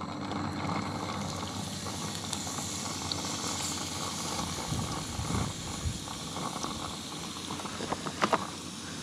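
Seasoned blacktail deer meat sizzling in hot oil in a frying pan: a steady hiss that starts as the meat is laid in. There are brief low rumbles around the middle and a couple of sharp clicks near the end.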